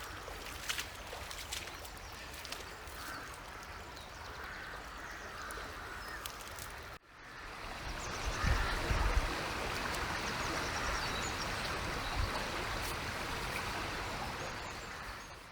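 Steady rushing of river water. It cuts out briefly about seven seconds in and comes back louder, with a few low thumps in the second half.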